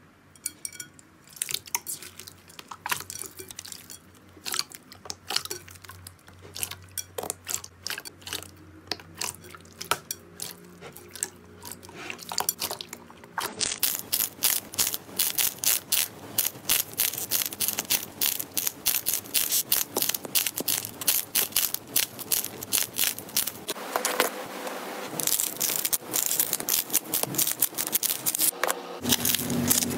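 Clear slime squelching softly with scattered small clicks as hands press it in a bowl. About halfway through this gives way to dense, rapid, louder crackling clicks as a squishy bunch of glossy grape-like balls is squeezed between the fingers.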